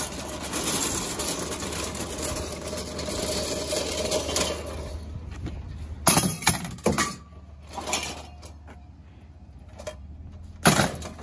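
Scrap being rummaged through in a blue recycling box: a steady rustling and scraping, then sharp metallic clanks and clinks about six seconds in and again near the end.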